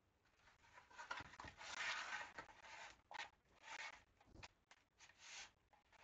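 Wooden model parts being picked up and handled: faint rubbing and scraping in several short bursts, with a couple of soft knocks.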